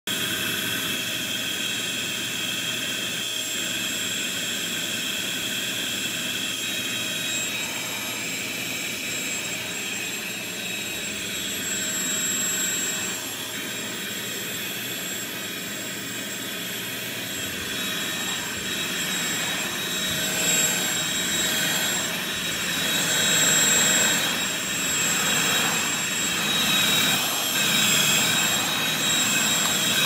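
Corded stick vacuum cleaner running on carpet: a steady high motor whine over rushing air. It gets louder and more uneven in the second half as it is pushed back and forth across the rug.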